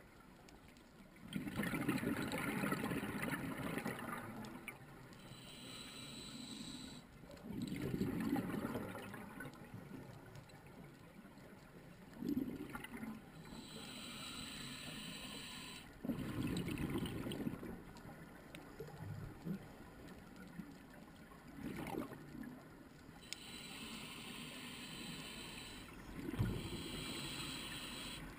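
Scuba diver breathing through a regulator underwater: a burst of exhaled bubbles rumbling and gurgling about every five to six seconds, with the quieter hiss of the inhale between bursts.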